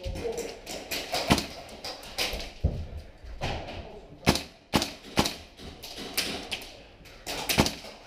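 Sporadic airsoft shots and knocks in an indoor corridor: about seven sharp cracks at irregular intervals, with two in quick succession near the end.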